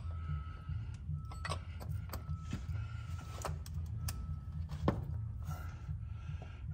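Scattered clicks and light knocks of a ratchet and oil filter wrench being worked on a cartridge oil filter housing to loosen it, over a steady low hum. The sharpest knock comes about five seconds in.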